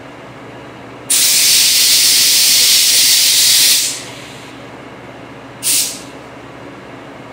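Compressed air hissing from a blow gun in two blasts: a long one of nearly three seconds that starts abruptly, then a short one of about half a second. A steady low machine hum runs underneath.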